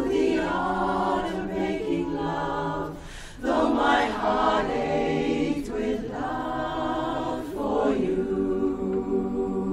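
Women's barbershop chorus singing a cappella in close harmony, holding sustained chords. About three seconds in there is a short breath break, then the next phrase comes in louder.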